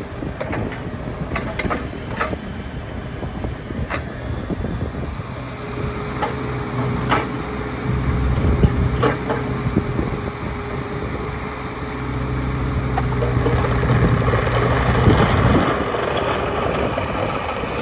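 Kubota U35-3 mini excavator's diesel engine running as the arm and bucket are worked, with a few sharp clanks in the first four seconds. From about six seconds in the engine works harder under a steady whine, and the excavator drives away on its tracks.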